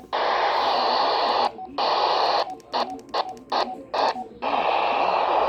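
Radio receiver hiss from a weak signal on NOAA Weather Radio station WXL39, barely coming through. The static cuts out and back in rapidly several times about halfway through, then runs steady again.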